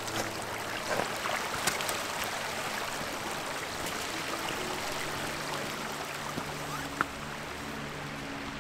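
Shallow mountain stream running over rocks, with a few sharp clicks from steps on the stones, most near the start and one more about seven seconds in.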